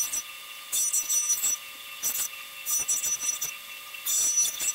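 Knova 1-inch belt and 5-inch disc sander running with a steady motor hum, its sanding disc grinding the corners of a small wooden block. Loud rasping passes come about once a second as the wood is pressed to the disc, easing back to the motor between them.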